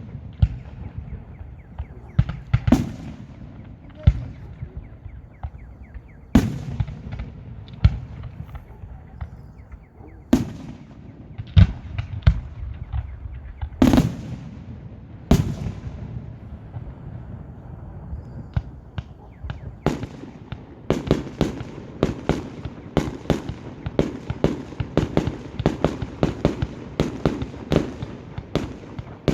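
Fireworks display: aerial shells bursting with sharp bangs every second or two, each trailing off in a low rumble. About two-thirds of the way in, the bursts turn into a rapid, continuous run of cracks, several a second.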